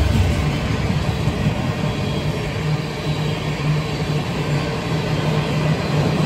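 Freight train's empty steel-hauling bulkhead flatcars rolling past: a steady rumble of steel wheels on rail with a constant low drone.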